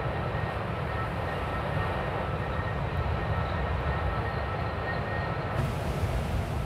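Strong wind rumbling over the microphone together with the roar of rough sea, a steady deep noise. About five and a half seconds in, a brighter hiss joins it.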